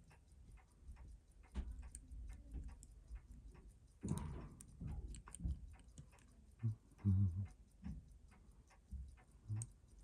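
Light, irregular small clicks and taps of watchmaker's tools on a Seiko 7A28 chronograph movement being taken apart. A few short, low, muffled sounds come from elsewhere in the house about four and seven seconds in.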